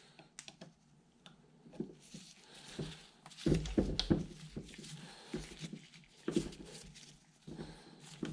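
Small clicks and knocks of a hand tool turning a set screw into the yoke of a steel tractor drive shaft, with the shaft shifting and knocking on a wooden bench. A cluster of louder knocks comes about three and a half seconds in.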